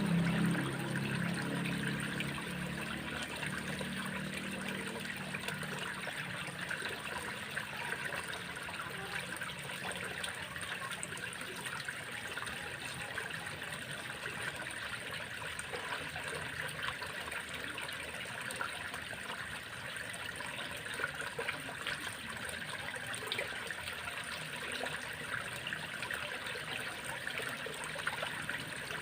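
Water trickling and flowing steadily in a small stream or ditch, a constant hiss with fine splashing. Intro music fades out in the first few seconds.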